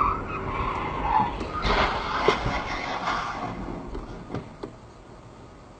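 Car tyres skidding with a squeal that fades about a second in, followed by a thump and a burst of noise, after which the sound dies down.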